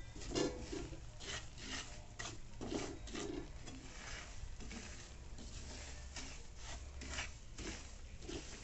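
Silicone spatula scraping and stirring a coarse, grainy mixture around a non-stick frying pan: a run of short, uneven rasping strokes, roughly one or two a second, over a low steady hum.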